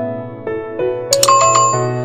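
Background music with a keyboard melody; a little over a second in, two sharp clicks and a short bell-like ding ring over it.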